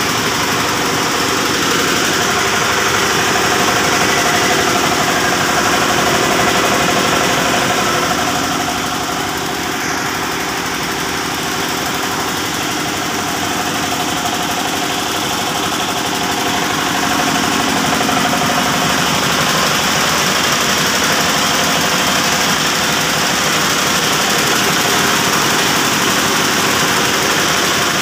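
Yanmar TF105R single-cylinder diesel engine running steadily, belt-driving a two-cylinder V-type air compressor pump that is pumping up its 250-litre tank on a test run.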